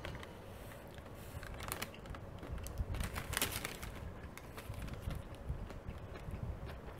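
Close-miked chewing of a Subway sandwich: soft, irregular jaw and mouth sounds with small wet clicks. The loudest stretch comes a little after three seconds in.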